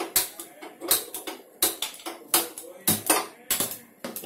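Steel ladle knocking and scraping against a steel kadhai as potatoes are stirred: irregular metallic clinks, about two a second, each with a short ring.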